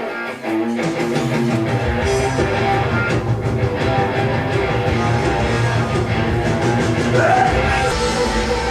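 Rock music with electric guitar. A picked guitar line opens, and about a second in the full band with bass and drums comes in and plays steadily.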